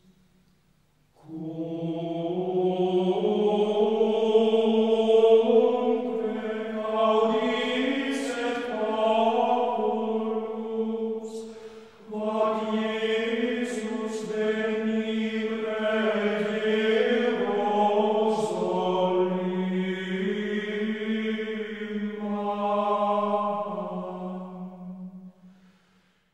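Background music of slow choral chant: voices holding long notes over a steady low drone, in two long phrases with a short break about twelve seconds in.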